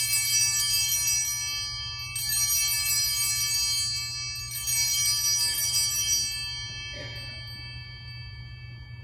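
Altar bells shaken in three rings about two and a half seconds apart, each a bright jangling cluster of high tones that fades out about seven seconds in. This is the ringing at the elevation of the chalice, just after the consecration.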